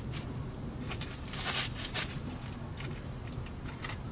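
Crickets chirping outdoors in a steady, high-pitched trill over a low background rumble, with a couple of brief, sharp noises about one and a half to two seconds in.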